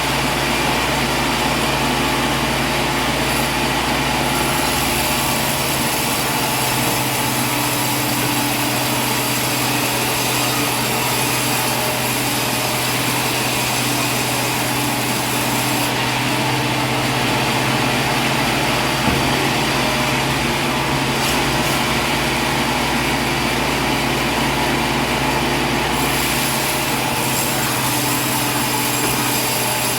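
Steady mechanical drone with constant low hum tones, from a running engine or machine. A single short knock about 19 seconds in.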